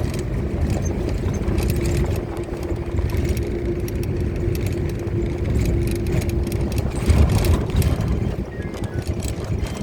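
Vehicle running on a road: a steady engine drone and low rumble with rattling.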